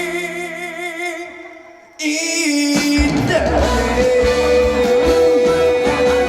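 A trot singer's held note, wavering with vibrato, fades away over the first two seconds. The band accompaniment then cuts back in loudly about two seconds in, with guitar, a held bass note and a steady beat from about three seconds in.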